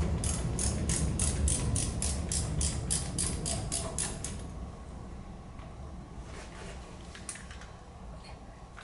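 Socket ratchet wrench clicking rapidly, about five clicks a second, as a bolt that is not done up tightly is spun out under a scooter engine; the clicking stops about four seconds in, with a few faint clicks after.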